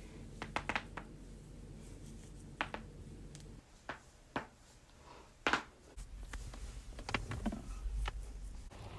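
Joints cracking during a chiropractic adjustment: a scattering of short, sharp pops and clicks, the loudest about five and a half seconds in, over a low rumble of body and handling movement.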